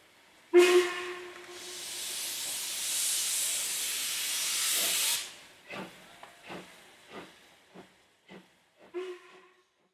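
Steam locomotive LMS Stanier Jubilee 45596 Bahamas: a sudden short pitched blast like a whistle toot, then a loud hiss of steam that builds for about four seconds and stops sharply. It is followed by a run of short separate beats about 0.6 s apart, with a brief pitched note again near the end.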